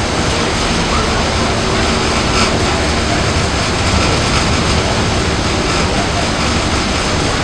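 Steady wind and water noise on the open deck of a moving Staten Island Ferry: loud, even rushing with low buffeting on the microphone.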